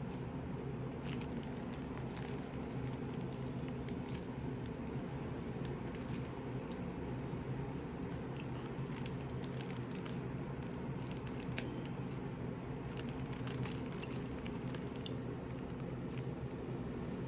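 Scattered small clicks and rustles of packaging being handled, over a steady low hum. One click about two-thirds of the way through stands out.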